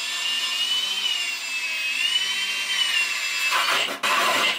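Milwaukee M18 cordless drill spinning a 4-1/4 inch hole saw against a wood-panelled wall: a high motor whine that wavers slightly in pitch under load. About three and a half seconds in, the saw bites and cuts in rough, stuttering grinding bursts.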